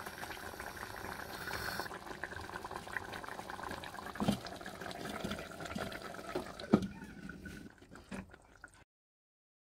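Chicken and potato curry simmering and bubbling in a clay pot, with two sharp knocks about four and seven seconds in. The sound cuts off suddenly near the end.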